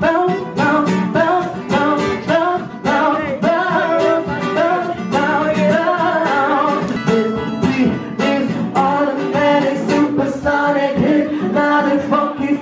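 A man singing a pop song live while strumming an acoustic-electric guitar, voice and guitar amplified through a microphone and pickup.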